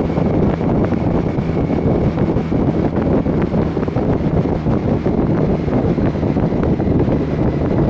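Motorcycle riding at road speed: heavy, steady wind rush over the microphone with the engine's steady drone underneath.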